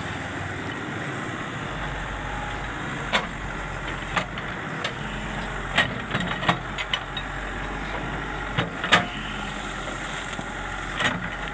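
Excavator's diesel engine running steadily, with sharp metallic clanks and knocks every second or so, a cluster of them around the middle and the loudest near the end.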